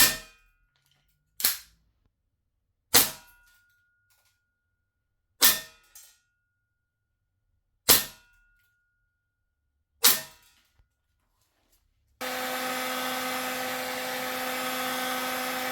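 Six single shots from a gas blowback airsoft pistol running on black gas, spaced about two seconds apart, each a sharp crack with a short ring. About twelve seconds in, a heat gun switches on and runs with a steady blowing hiss and motor hum, warming the gas magazine.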